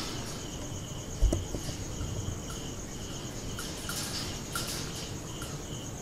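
Crickets chirping in a steady pulsing trill, with a single thump about a second in.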